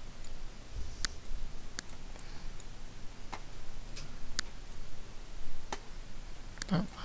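Computer mouse buttons clicking: about six single sharp clicks at irregular intervals, left clicks made while selecting and dragging on screen.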